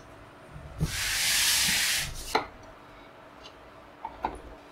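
A scraping, rubbing hiss lasting about a second as the monitor and its packing are handled, then a sharp knock and a few light taps as the metal stand is set against the monitor's back.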